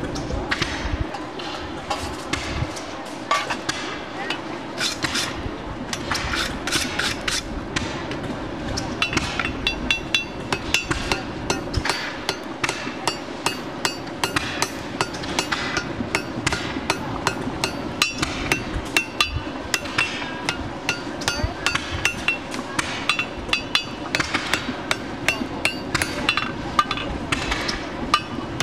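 Farrier's hammer forging a red-hot steel draft horseshoe on an anvil: scattered blows at first, then from about nine seconds in a steady run of blows, each with a short metallic ring.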